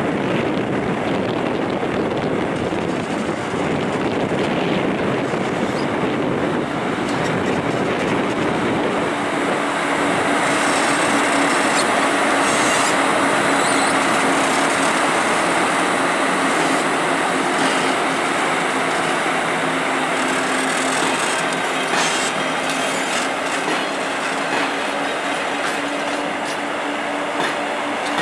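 PKP Cargo ET22 electric freight locomotive and its train of Talbot hopper wagons rolling past, a steady rumble of wheels on rails with clickety-clack over the joints. A steady hum comes in about nine seconds in, and a few sharp clicks sound near the end.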